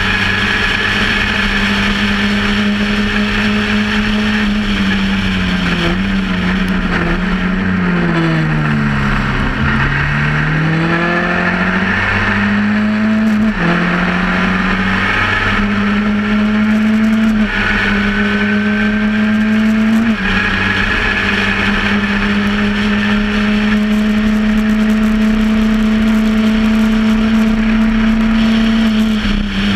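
Onboard sound of a Formula Ford 1600 single-seater's 1.6-litre Ford four-cylinder engine running hard at racing speed, with wind rushing past the open cockpit. About six seconds in the revs fall away as it slows for a corner, then climb again; later the note drops briefly a few times at gear changes before holding high and steady.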